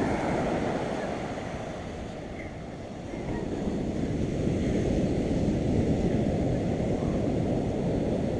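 Surf washing on a beach with wind buffeting the microphone; the rush eases about two seconds in and swells back up a second later.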